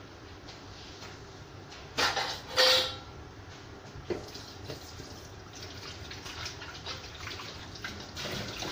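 Steamer pot simmering, water bubbling faintly under the tray of glutinous rice. Two loud short noises come about two seconds in, the second with a brief ring.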